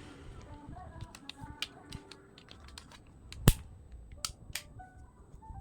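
Scattered small clicks and taps, with one sharp, much louder click about three and a half seconds in, over faint background music.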